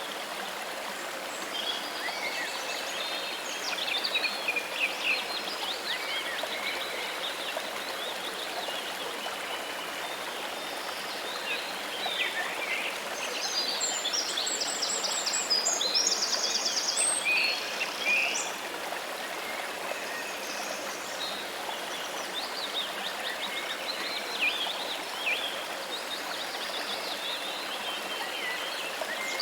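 Steady running water with several birds chirping and singing over it; about halfway through, a busier run of rapid trills.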